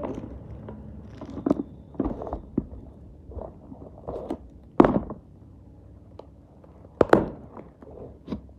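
Taped cardboard parcel being handled and knocked on a tabletop: irregular thumps and scrapes, with two louder thuds about five and seven seconds in.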